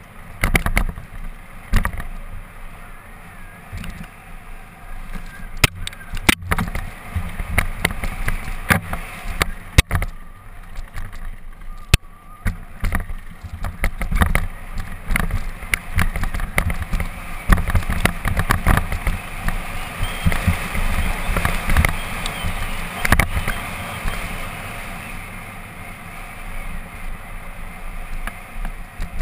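Mountain bike descending a rocky dirt trail: wind buffeting the microphone, tyres rolling over dirt and gravel, and frequent sharp rattles and knocks from the bike over rocks and roots.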